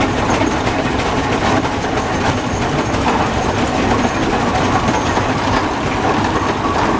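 Rumely OilPull tractor's kerosene-burning engine running steadily as the tractor moves.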